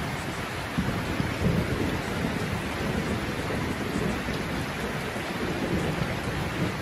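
Steady rain hissing, with a low rumble of thunder swelling and fading underneath.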